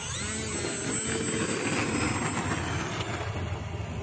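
RC PC-6 Porter model airplane's motor and propeller running under throttle. Its pitch rises and falls in the first second, and a steady high whine fades out about two and a half seconds in.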